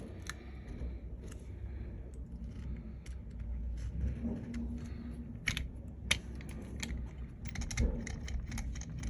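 Small repair tools clicking and tapping against an iPhone 12 Pro Max as its screen is pried loose, a few separate clicks and then a quicker run of them near the end, over a steady low hum.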